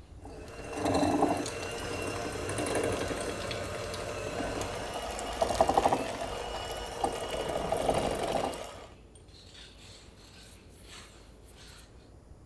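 Electric hand mixer whipping softened butter in a glass bowl. The motor runs steadily, with a few louder knocks near the middle, and stops about nine seconds in.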